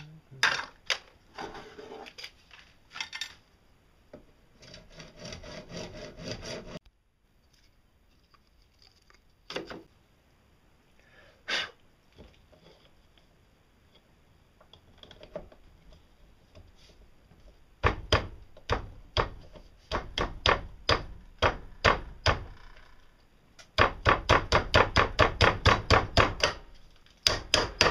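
Hand work on a piece of PVC pipe: scattered clicks and scrapes, then runs of quick, repeated scraping or rubbing strokes. The runs start about two-thirds of the way in and speed up to about four strokes a second near the end.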